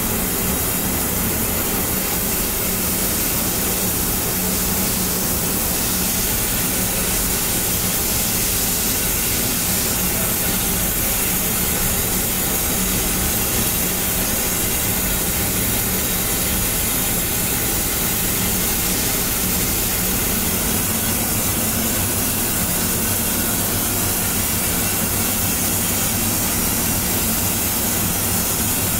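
Jeweler's gas torch flame hissing steadily as it heats a silver cane cap, with a faint low hum beneath.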